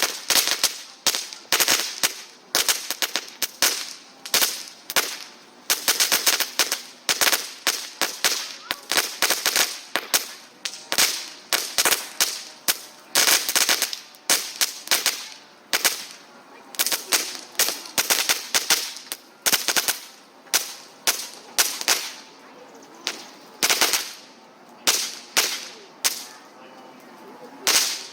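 A small firework going off in a long, irregular run of sharp cracking pops, one to three a second, that stops shortly before the end.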